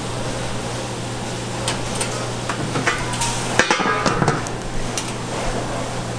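Kitchen utensils and dishes clattering: scattered sharp knocks and clinks, the loudest about three and a half seconds in, over a steady low hum.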